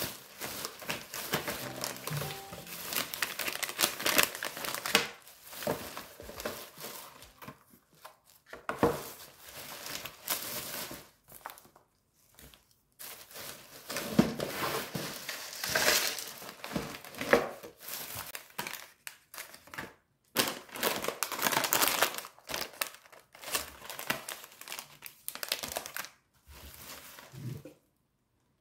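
Thin plastic shopping bag crinkling and rustling as packaged snacks are pulled out of it and set on a table, in irregular bursts with short pauses.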